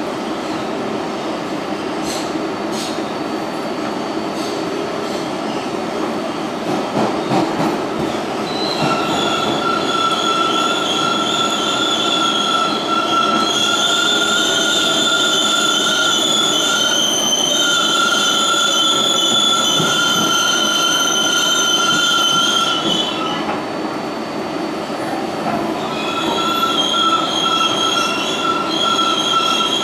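Kawasaki R142A subway car running at speed, heard from inside the car: a steady rumble of wheels on rail, joined about nine seconds in by a high, steady wheel squeal that holds for some fourteen seconds, drops out briefly and comes back near the end.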